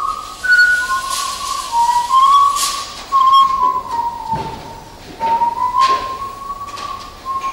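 A person whistling a slow tune, holding notes and sliding from one to the next, with breaths heard between phrases.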